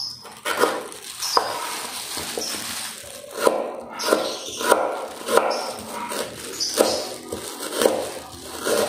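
A dog barking over and over at a steady pace, about one bark every two-thirds of a second.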